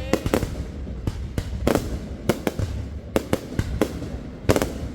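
Aerial fireworks display: about a dozen sharp bangs and cracks going off at irregular intervals over a continuous low rumble, the loudest crack near the end.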